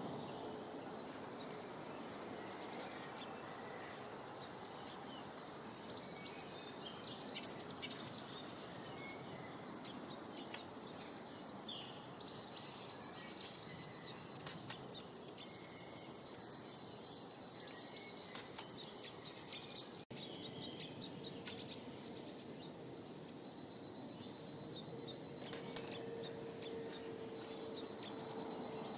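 Several small forest birds chirping and twittering in quick, overlapping calls, over a steady low background rush.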